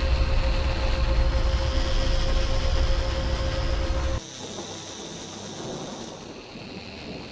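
Heavy vehicle engine running: a deep steady rumble with a hum over it, which cuts off abruptly about four seconds in, leaving a much quieter hiss.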